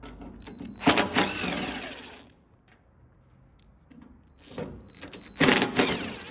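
DeWalt 20V MAX cordless drill/driver running in two short bursts, about a second in and again near the end, as it backs out the door latch screws on a Scout II door; the pitch glides as each burst winds down.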